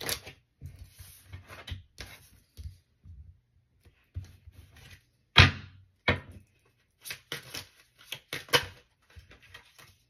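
A deck of tarot cards being shuffled and handled, with a string of short taps and slaps of cards on a tabletop; the loudest knock comes about five seconds in.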